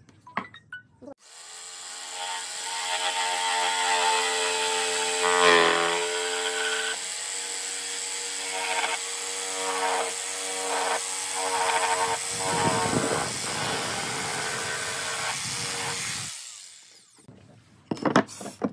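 Corded jigsaw starting up and cutting the end of a wooden board along a traced curve, its motor whining steadily with the blade sawing for about fifteen seconds before it stops. A few wooden knocks follow near the end as cut boards are set down on the bench.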